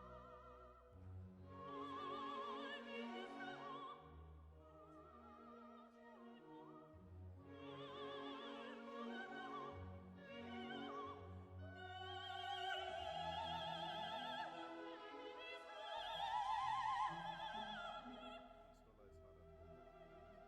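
Background music: operatic singing with vibrato over an orchestral accompaniment, quiet, swelling and fading in phrases.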